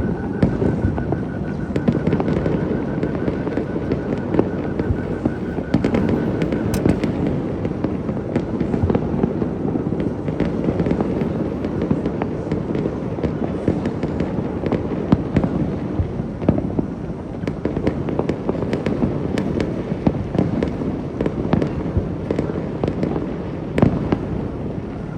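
A New Year fireworks display going off continuously: many overlapping bangs and crackles with a heavy low rumble, and no break. A thin steady high tone sounds under the explosions for about the first seven seconds.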